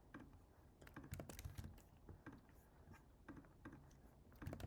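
Faint computer keyboard typing: irregular clicking keystrokes.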